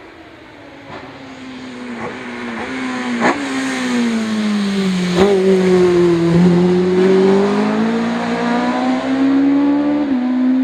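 Opel Kadett C hillclimb car's engine approaching and growing louder, its revs falling over the first six seconds and then climbing again as it accelerates. A few sharp cracks come in the first half, and the revs drop suddenly once near the end, as at a gear change.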